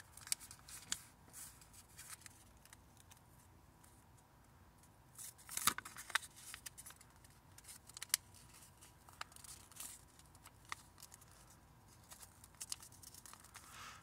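A sheet of paper being folded and creased by hand: scattered soft crinkles and clicks of the paper, with a louder cluster of rustling about five to six seconds in and another sharp crinkle near eight seconds.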